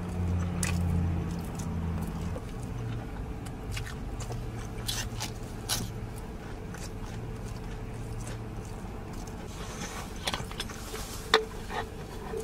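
Truck engine idling, heard from inside the cab as a steady low hum, with scattered clicks of a person chewing and biting into pizza.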